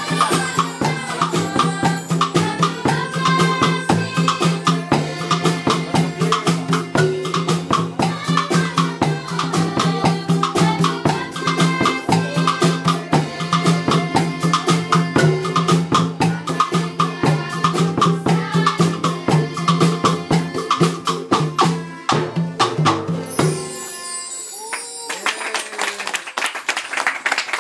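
Upbeat music with a fast, steady percussion beat and a rattling tambourine or shaker, which stops about 24 seconds in and gives way to quieter sound.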